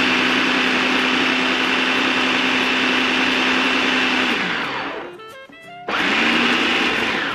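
Food processor motor running steadily while cold water is poured in to bring flour and butter together into dough. It winds down about four and a half seconds in, then starts again with a short pulse about a second later.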